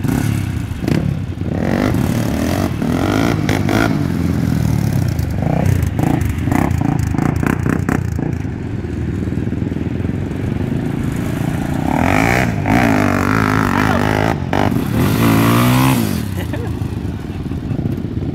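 Sport ATV engines running and revving, pitch rising and falling hard in the second half as the quads are throttled up for wheelies.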